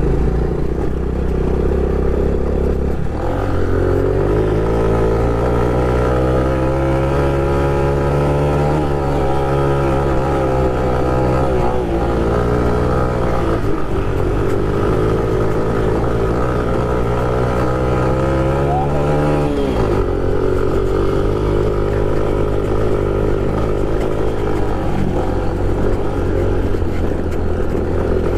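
Honda Pop 110i's 110 cc single-cylinder four-stroke engine running, its pitch rising and falling with the throttle for most of the stretch. About twenty seconds in the note falls away sharply, then carries on steadier.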